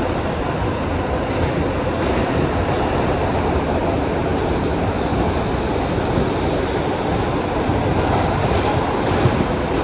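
Interior of an R142 subway car running at speed through a tunnel: a steady, loud rumble of wheels on rails with no let-up.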